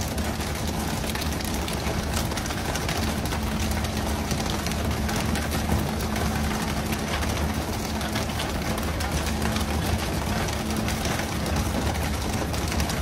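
Steady low engine hum under a constant hiss of splashing water spray.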